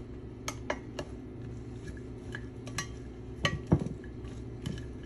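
Chopped coleslaw being tossed with two plastic serving utensils in a glass baking dish: scattered clicks and taps of the utensils against the glass, with soft rustling of the shredded cabbage.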